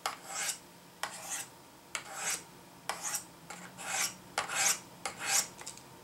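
Steel blade of an old Swiss Army knife drawn down the medium ceramic rods of a Spyderco Tri-Angle Sharpmaker in alternating strokes. About eight scraping strokes come roughly one a second, then stop near the end. This is the finishing pass on the mediums to take out the burr.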